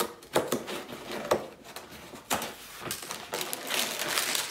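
Perforated tabs of a cardboard LEGO box being pushed in, with three separate sharp snaps. Near the end the box is opened, and cardboard and the plastic bags inside rustle and crinkle.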